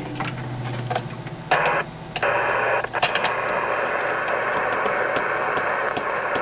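A few clicks, then from about two seconds in a steady hiss of band noise from the Icom IC-718 transceiver's speaker as its receiver is connected to the antenna.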